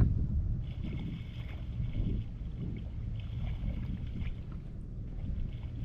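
Water sloshing and splashing in a flooded field, in irregular spells, over a steady rumble of wind on the microphone.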